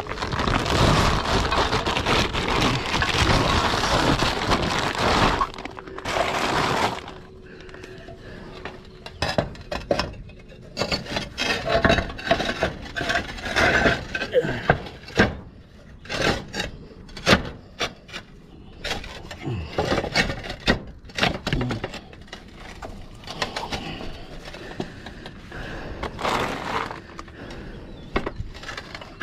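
Concrete roof tiles scraping and knocking against each other and the battens as they are lifted out and slid into place, in a string of short knocks and scrapes. A loud rushing noise fills about the first six seconds.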